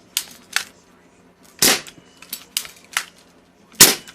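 Daisy 1270 CO2 BB pistol firing two shots about two seconds apart, each a sharp crack, with lighter clicks before and between them.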